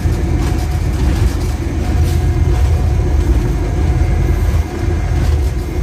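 GEU-20 diesel-electric locomotive running along the line: a steady, loud low rumble of engine and wheels on the track.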